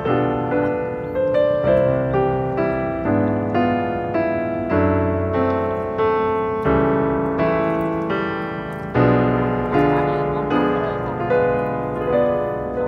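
Background piano music: a gentle melody of struck notes, each ringing and fading, in an even rhythm of about two notes a second.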